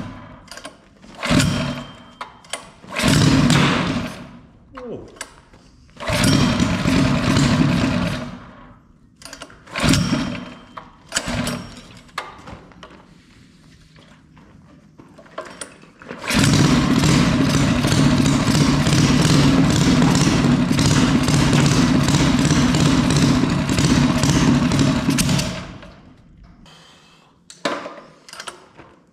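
Rebuilt Predator 212 Hemi single-cylinder engine being pull-started on its first test run after a hot cam and billet rod build. It fires for a second or so on several pulls and dies, then catches and runs steadily for about nine seconds before dying. It starts again right at the end.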